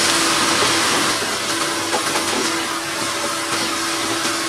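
Sliced onions sizzling in hot sunflower oil in a non-stick pan as they are stirred with a wooden spatula: a steady hiss with a faint steady hum underneath.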